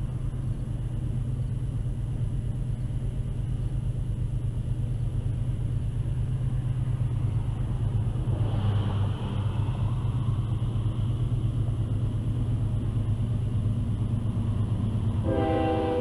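Steady low rumble of an approaching freight train's diesel locomotives, with a brief rush of noise about halfway through. Near the end, a locomotive air horn starts to blow, sounding several notes at once.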